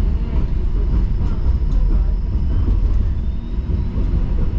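Bombardier Flexity Outlook streetcar running along its track, heard from inside the car: a steady low rumble with faint steady tones from the drive and a few light rattles about a second in.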